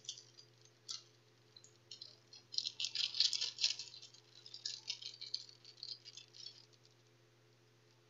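Small clear plastic parts bag crinkling in the hands as it is opened, in irregular crackly bursts that are busiest two to four seconds in and die away near the end. A steady low hum runs underneath.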